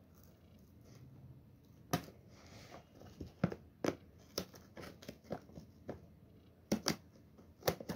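Scissors cutting through packing tape along the seam of a cardboard box: a run of sharp, irregular snips, starting about two seconds in and coming faster toward the end.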